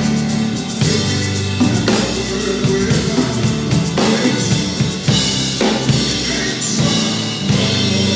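Live band music led by a drum kit, with bass drum, snare and cymbal strokes over steady low notes from the band.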